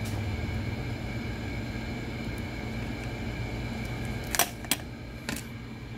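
Steady low hum of room background, broken about four and a half seconds in by a few sharp clicks of handling noise as the phone and magnifying lens are moved against each other.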